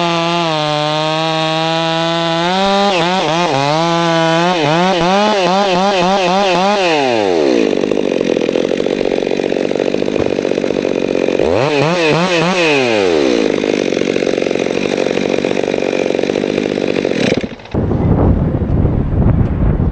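Chainsaw running at high revs, its pitch wavering and sagging as it bogs into the wood, then dropping away about seven seconds in. A rough steady noise follows, with one more rise and fall of the saw's note. Near the end the sound cuts abruptly to a low rumble with wind on the microphone.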